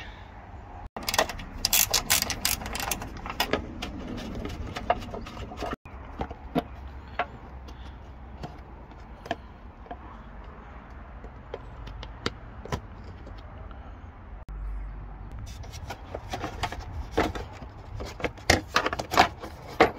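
Flat-blade screwdriver prying plastic trim clips out of the panel on a car's front slam panel: scattered clicks, scrapes and knocks of plastic and metal, thickest early on and again near the end, over a steady low rumble.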